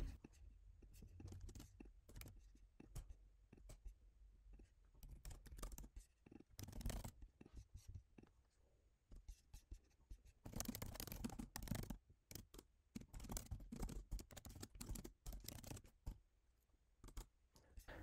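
Faint typing on a computer keyboard: irregular runs of quick key clicks with short pauses between them.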